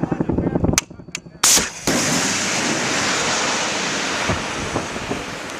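Javelin anti-tank missile fired from the shoulder: two sharp clicks, then a loud sharp launch blast about a second and a half in, followed by a long rushing hiss as the missile's rocket motor carries it away, slowly fading.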